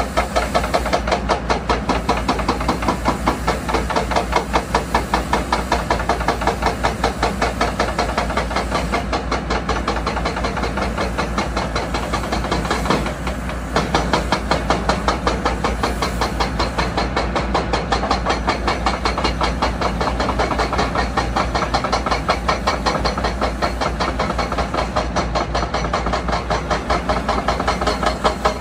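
Heavy construction machinery at work: diesel engines running with a rapid, steady mechanical knocking over a hiss, pulsing about three times a second. It dips briefly about halfway through.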